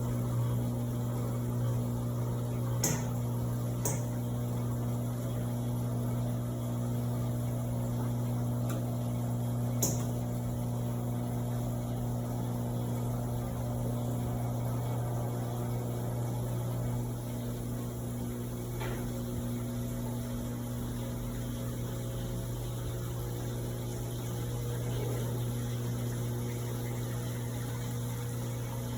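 Electrolux LPE16 top-loading washing machine running through its duvet cycle with a steady electric hum and some water noise, with a few faint clicks in the first third.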